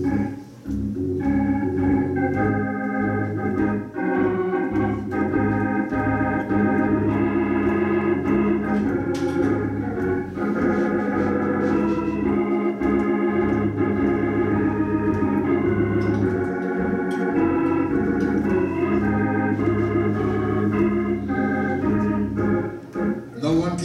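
Organ playing sustained chords.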